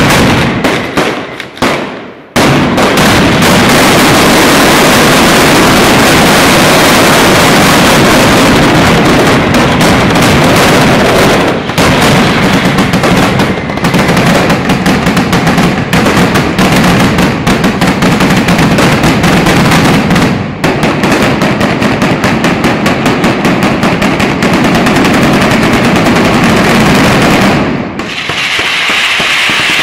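Mascletà firecrackers exploding: a few separate loud bangs, then from about two seconds in a dense, unbroken barrage of blasts, the closing 'terremoto' of the display. The barrage stops shortly before the end.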